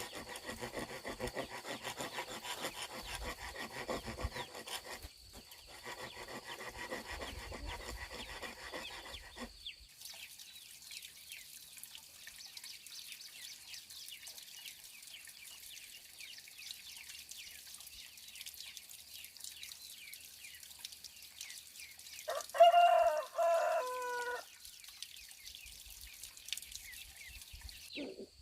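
Rhythmic rasping strokes on wood for about the first ten seconds. Then a faint, steady, high-pitched background hiss, with a rooster crowing once, loudly, for about two seconds near the end.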